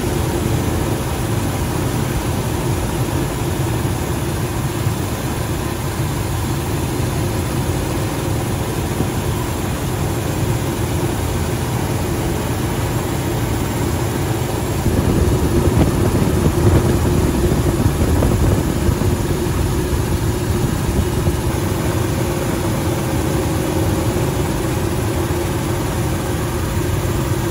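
Steady helicopter engine and rotor noise, a little louder from about halfway through.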